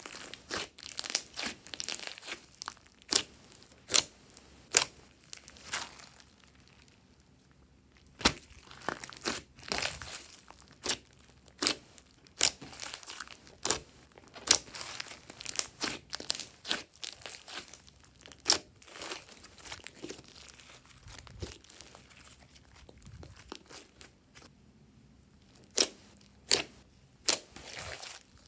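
Hands squeezing and pressing glossy slime, making a run of irregular sharp pops and clicks, with a short lull about a quarter of the way in and another near the end.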